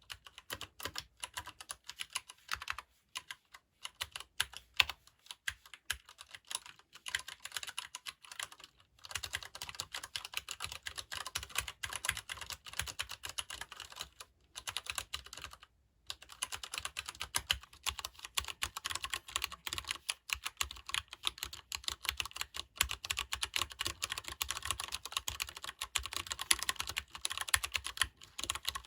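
Typing on a Leopold FC750R PD mechanical keyboard with non-clicky, tactile Cherry MX Brown switches. The first part is slower, with gaps between keystrokes. About a third of the way in it becomes fast, near-continuous typing, with two brief pauses near the middle.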